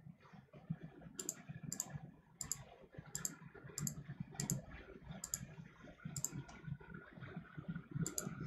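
Computer mouse clicking, about ten sharp single clicks spaced roughly half a second to a second apart, as one-star ratings are clicked on a web survey.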